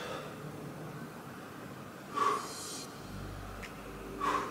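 A man breathing out hard twice, about two seconds apart, in time with repetitions of a crunch exercise.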